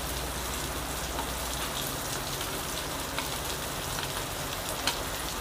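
Whole cumin, black pepper and coriander seeds crackling steadily in a hot pan as they roast, with scattered sharp pops. A low hum fades out about two seconds in.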